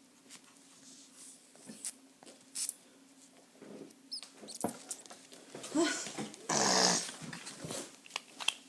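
A pet dog's sounds: a short low pitched vocal sound about six seconds in, followed at once by a loud breathy rushing burst, among scattered small clicks and taps.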